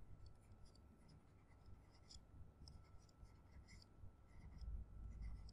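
Faint scratching and light tapping of a stylus writing on a tablet screen, in short strokes, with a soft low rumble near the end.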